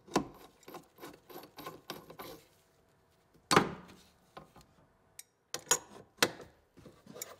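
Adjustable wrench working the threaded A/C accumulator line fittings: a run of short metallic clicks and scrapes, a louder clack about three and a half seconds in, then a few more clicks and knocks near the end.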